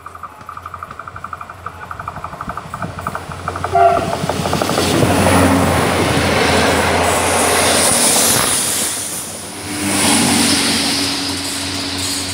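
Level-crossing warning bell ringing rapidly, then a short horn note about four seconds in as a diesel railbus train rushes over the crossing, wheels and engines loud. The noise dips briefly about nine seconds in before the last railcar passes.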